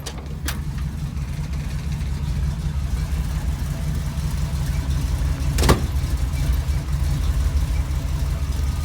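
Car engine running with a steady low rumble that grows slightly louder, with a single sharp click about five and a half seconds in.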